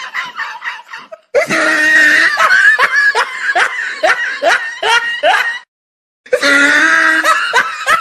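Laughter: a rhythmic run of short rising 'ha' sounds, about three a second. It cuts off abruptly into dead silence for about half a second, then comes back.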